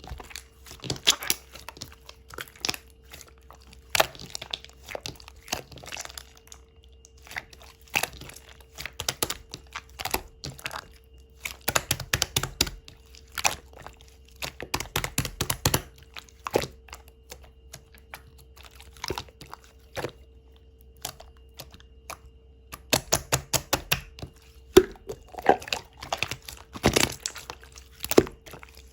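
Thick, stretchy slime with gold pearl pigment being pressed, poked and stretched by hand, giving clusters of sharp sticky clicks and pops with quieter gaps between.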